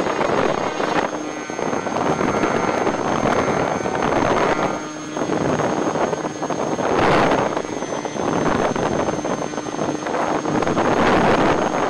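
Twinstar II RC plane's twin electric motors running at high throttle through takeoff and climb, heard from aboard the plane as a loud rushing noise mixed with wind that swells and eases, over a steady high-pitched whine.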